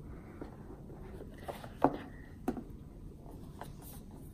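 Cardboard rubbing as the snug lid of an Apple iPad box is slid off its base, with three light knocks, the sharpest just under two seconds in.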